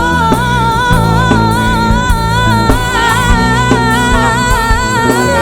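Live band music: a female singer holds one long, wavering note over bass, guitar and drums.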